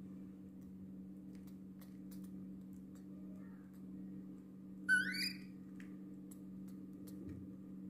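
A baby monkey gives one short, high-pitched squeak that rises in pitch, about five seconds in. Under it runs a steady low hum with faint scattered clicks.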